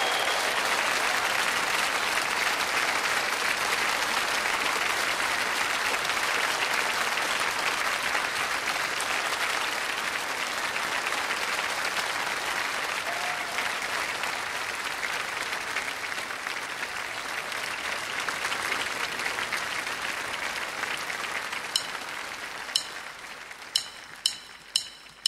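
Studio audience applauding steadily, dying away over the last few seconds. It leaves a few sharp, isolated clicks near the end.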